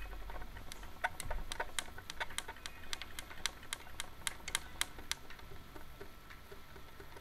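Light, quick clicks on a hard work surface, about three a second, as a piece of clay is rolled out by hand; they thin out near the end.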